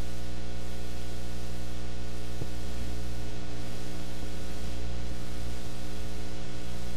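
Steady electrical mains hum, buzzing with many overtones, under a constant hiss, with nothing else standing out.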